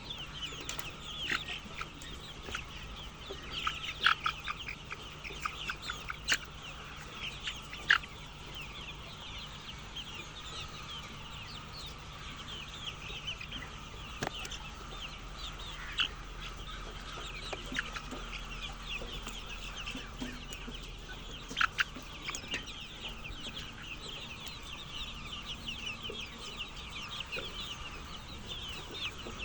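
A flock of chickens clucking and chattering continuously, many short calls overlapping. A few sharp taps or clicks stand out above the flock now and then.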